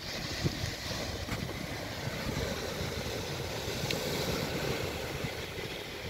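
Steady seaside wind blowing on the microphone, with a low fluttering rumble, over the wash of sea surf.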